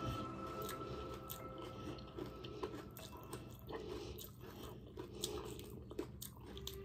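A person chewing a mouthful of Frosted Flakes cereal in milk, with many short, irregular crunches and wet mouth clicks.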